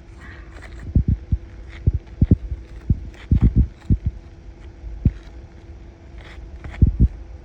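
Irregular dull thumps, some in quick pairs and clusters, over a faint steady hum.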